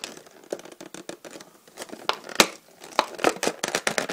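Clear plastic packaging crinkling and crackling as hands pry and pull it open, in irregular sharp crackles that get louder in the last second or so.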